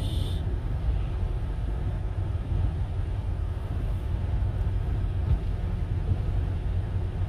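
Steady low rumble of a car driving on a snowy road, engine and tyre noise heard from inside the cabin.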